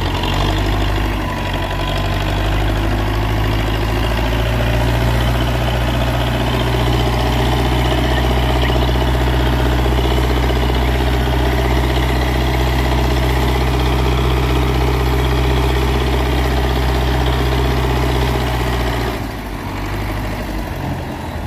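Tractor's diesel engine running steadily while it slowly pulls a trolley heavily loaded with sugarcane. The engine sound eases off about nineteen seconds in.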